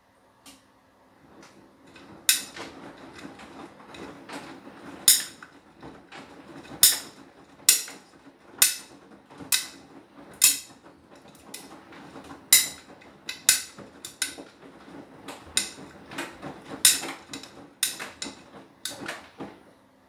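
Beko WTK104121W washing machine drum turning during an Anti Allergy wash, laundry tumbling with sharp clicks and knocks about once a second. The churning starts about half a second in and stops at the very end, between quiet pauses of the wash action.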